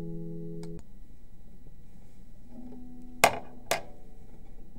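The last held chord of a song stops abruptly under a second in, leaving a low hiss. A little after three seconds in come two sharp clicks about half a second apart.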